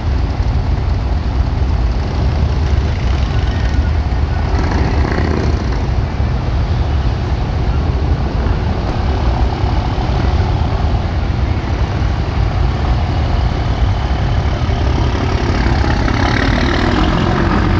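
Steady low rumble of street traffic, a continuous engine drone with no breaks.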